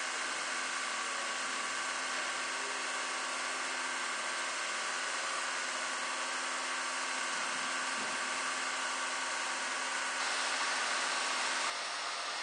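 Small electric appliance motors running together in a steady, noisy drone with a few steady hum and whine tones on top. The sound changes abruptly about ten seconds in, then drops to a different, thinner hiss about a second and a half later, as appliances are switched.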